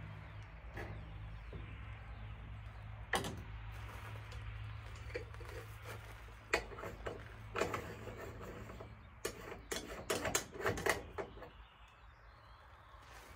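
Scattered clicks and knocks of objects being handled, several in quick succession near the end, over a low hum that fades out in the first few seconds.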